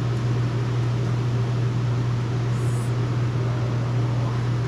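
RV rooftop air conditioner running, a steady low hum with the rush of its blower, with a brief soft high hiss from handling the vent parts about two and a half seconds in.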